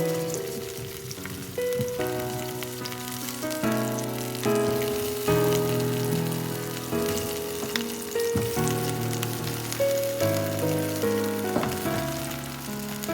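Food frying and sizzling, with background music of held notes that change every second or so.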